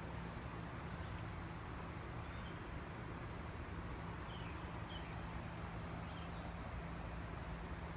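Birds chirping in short, high calls several times over a steady outdoor rush of background noise with a low hum.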